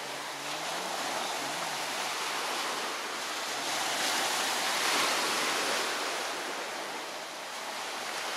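Small sea waves breaking and washing up a pebble beach: a steady rush of surf that swells to its loudest about halfway through, then eases.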